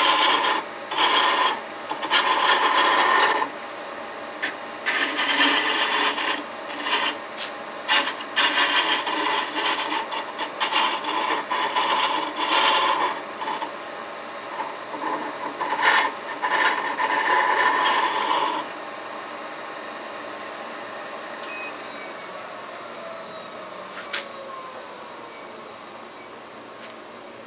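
A turning tool cutting a spinning walnut handle blank on a Record Power Herald wood lathe, in irregular scraping passes. After about 18 seconds the cutting stops and the lathe runs on alone, its pitch slowly falling as it winds down, with a couple of light clicks near the end.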